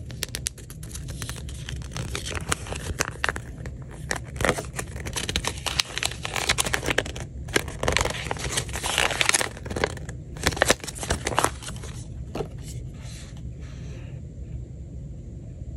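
Paper instruction manual being unfolded and handled: dense crinkling and rustling with crisp crackles, dying down about twelve seconds in.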